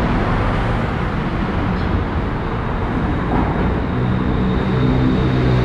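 BTS Skytrain electric train running: a steady rumble and rush, with a low hum that grows stronger from about four seconds in.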